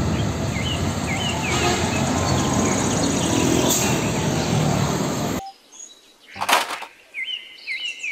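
Road traffic with an Isuzu car-carrier truck passing close by, its diesel engine running, under a steady traffic noise with faint bird chirps. The traffic noise stops abruptly about five seconds in, leaving a short whoosh and a few bird chirps.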